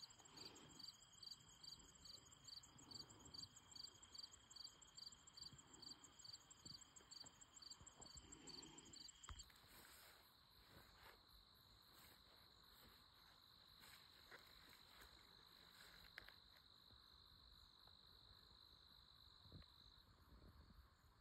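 Faint insects calling. For the first nine seconds a high chirp pulses a little over twice a second over a steady high trill. Then it changes suddenly to a single steady high trill that stops shortly before the end.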